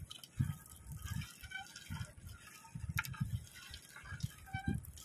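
Water dripping and splashing off a wet gill net as it is hauled by hand into a boat, with irregular soft knocks.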